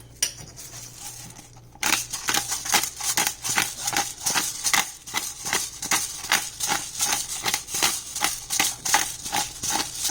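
Pepper grinder being twisted over the pan, grinding peppercorns in a quick, even run of crunching clicks, about four or five a second, starting about two seconds in.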